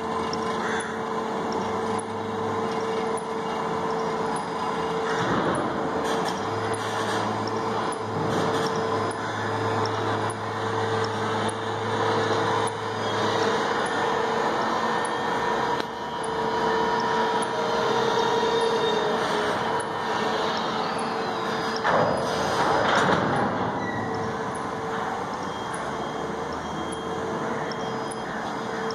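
Rubber-tyred gantry crane running as it lowers its container spreader: a steady machinery hum with a constant whine over it, a deeper drone that sets in for several seconds, and a louder rush of noise about two-thirds of the way through.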